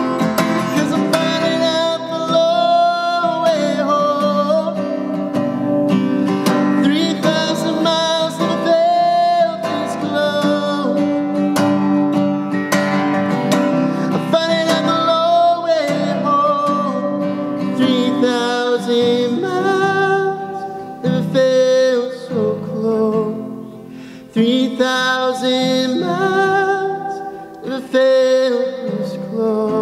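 A man singing a slow song to his own strummed steel-string acoustic guitar. The playing and singing drop to a quieter passage about two-thirds of the way through, then swell again.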